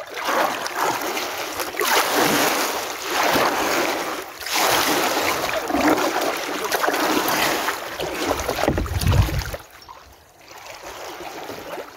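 Kayak paddle strokes in calm river water: a swishing splash with each stroke, about one every second and a half. A low rumble comes about nine seconds in, and the strokes go quieter near the end.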